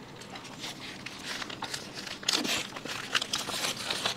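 Eating sounds: crunching and chewing of fried snacks such as potato chips and fries, with a paper food wrapper crinkling. A dense run of crackles, busier in the second half.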